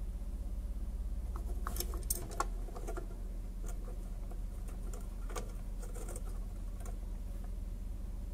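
Light clicks, taps and scrapes of the metal microphone base and its wires being handled on a workbench. They come in two loose clusters, around a couple of seconds in and again in the middle, over a steady low hum.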